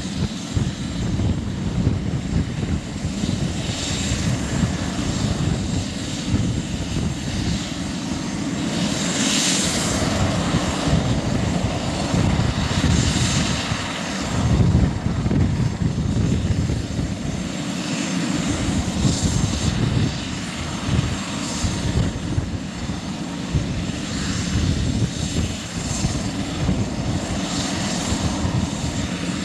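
Airbus H145 helicopter's twin turboshaft engines running on the ground: a steady turbine rush over a low rumble, with the high hiss swelling several times.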